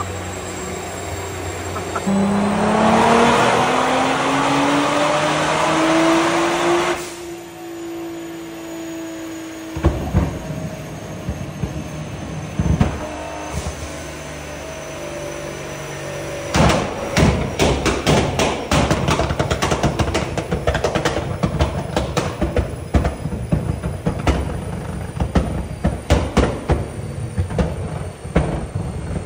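Nissan R35 GT-R's twin-turbo V6 revving on a dyno, rising in pitch for about five seconds and then falling back. From about halfway on, rapid irregular exhaust pops and bangs follow as the car backfires flames out of its tailpipes.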